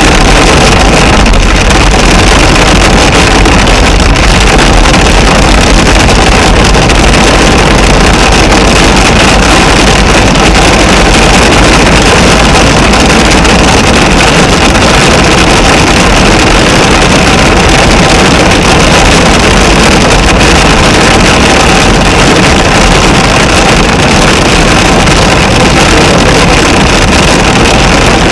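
Torrential rain beating on the car's roof and windscreen, heard from inside the car as a very loud, steady, dense hiss.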